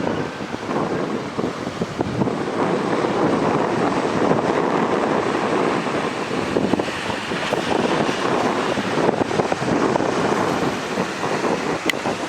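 Sikorsky SH-60J Seahawk patrol helicopter running: its twin turboshaft engines and rotor make a steady, rough rumble, with wind buffeting the microphone.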